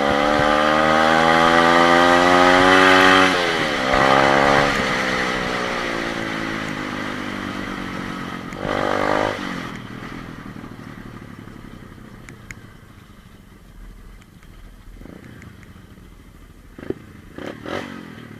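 125cc pit bike engine revving up in a rising pitch for about three seconds, dropping sharply, then revving briefly again. The note then dies away over several seconds with one short blip of throttle, leaving a quieter stretch with a few clattering knocks near the end.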